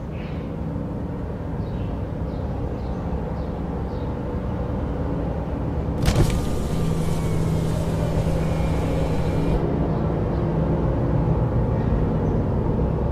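Car engine running steadily, with a sharp crack about six seconds in.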